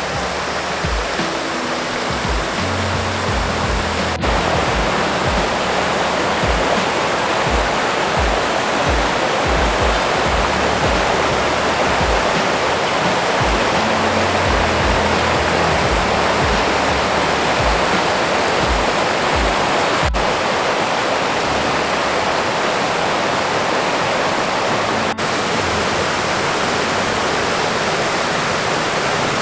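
Loud, steady rush of mountain water falling and running over rocks. Background music with a low bass line and beat plays under it, fading out about two-thirds of the way through.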